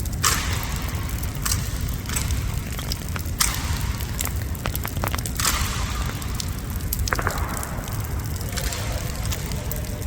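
Heavy rain falling in a downpour, a crackling hiss over a steady low rumble, with short sharp bursts and clicks every second or two.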